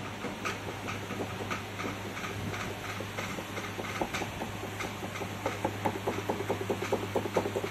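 Repeated light clicks of keys on an electronic keyboard being pressed and released, about two a second at first and faster near the end, over a steady electrical hum.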